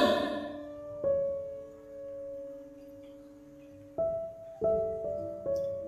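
Soft piano backing music. A chord is struck about a second in and left to ring out, then three more notes come from about four seconds in.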